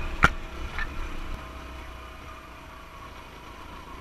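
Off-road motorbike running on a dirt trail, heard from a camera mounted on the bike or rider as a steady low rumble that slowly fades. A sharp knock sounds just after the start, with a smaller one about a second in.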